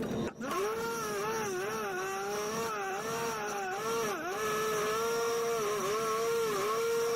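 Power tool spinning a wire wheel, its motor whine dipping in pitch again and again as the wheel is pressed onto the metal part to strip it before painting.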